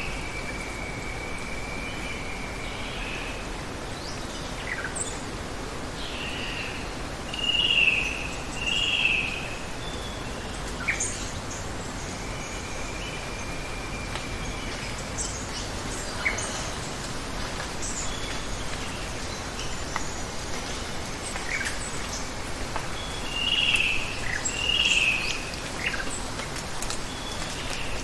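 Steady wash of water under bird calls. Two short, loud calls in a row come about a quarter of the way in and again near the end. There are long level whistles near the start and in the middle, and scattered brief high chirps.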